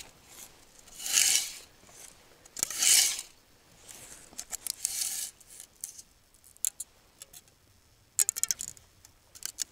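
Fishing tackle being handled while pike float rigs are set out: three rustling swishes about two seconds apart, then a quick run of small clicks and clinks near the end.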